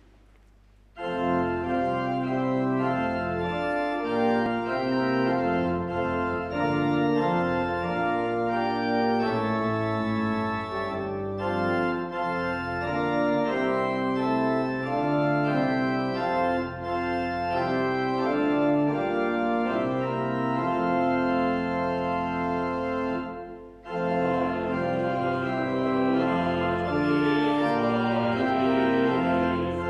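Church pipe organ playing sustained, slowly changing chords. It starts about a second in and breaks off briefly near the end, and a choir then starts singing with it.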